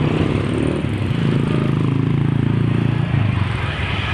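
Bus engine running, a loud steady low drone that swells for a couple of seconds and eases off about three seconds in.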